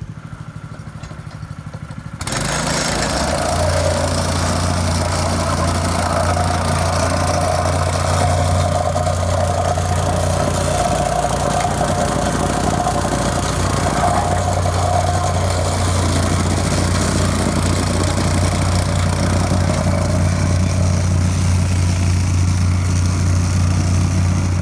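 Plate compactor's small engine idling, then throttled up about two seconds in and running steadily at speed as the vibrating plate compacts the granular A gravel base.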